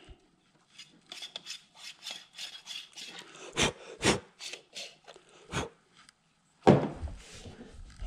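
Coffee distribution tool turned on top of a filled espresso portafilter: a run of light scraping and clicking with a few sharper knocks, then a louder knock about seven seconds in.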